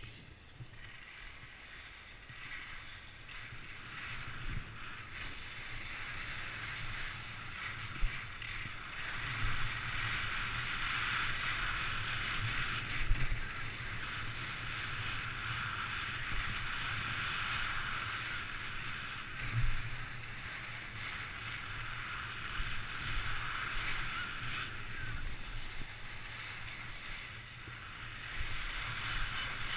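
Skis hissing and scraping over the snow on a downhill run, building up over the first few seconds and holding steady, with wind buffeting the camera microphone and a few sharp knocks.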